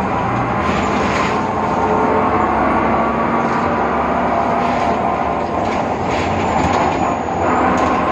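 Inside a BredaMenariniBus Avancity Plus city bus under way: a steady drone with a constant high whine, the strange sound that comes from its worn differential, with a few brief rattles on top.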